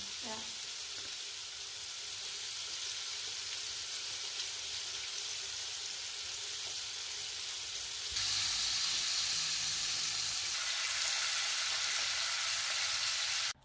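Indian mackerel frying in oil in a pan: a steady sizzle that gets suddenly louder about eight seconds in.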